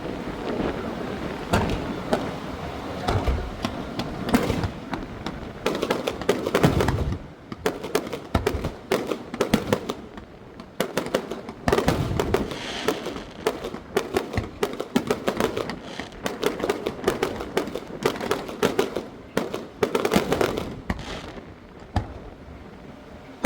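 Aerial fireworks display going off: rapid bangs and crackling bursts, coming in dense clusters with short lulls between.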